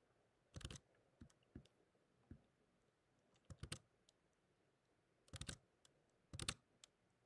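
Computer keyboard keys clicking as keyboard shortcuts are pressed: a few single clicks and four short clusters of keystrokes, spread over several seconds.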